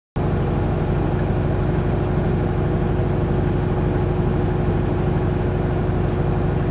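Top-load washing machine running with a steady low hum; it cuts in suddenly at the start.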